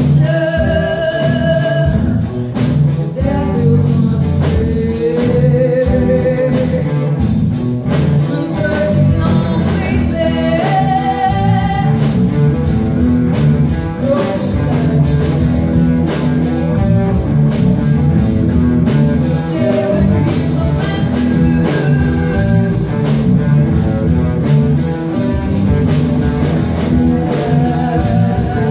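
Live rock band playing a song: a woman sings through a microphone over electric guitars, bass and a drum kit, her sung phrases coming and going over the steady band.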